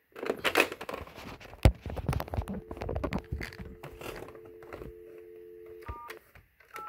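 Handling rustle and clicks with one sharp click about a second and a half in, then a steady two-tone North American dial tone from a Northern Telecom DMS-10 telephone switch. Near the end, touch-tone (DTMF) beeps from the phone's keypad cut off the dial tone, two digits in quick succession.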